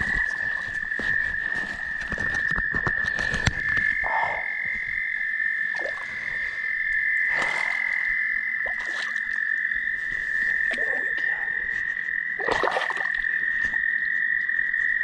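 A night chorus of frogs calling: a steady, unbroken high trill with a few louder calls standing out over it. Rapid clicks and knocks of handling fill the first few seconds.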